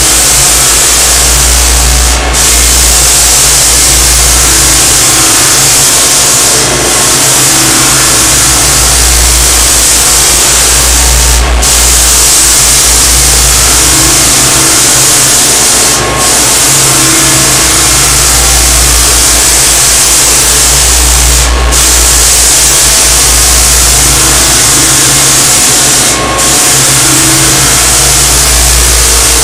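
Continuous belt floor sander with 60-grit paper running, cutting into a maple wood floor as it is worked back and forth. A loud steady drone dips briefly about every four to five seconds.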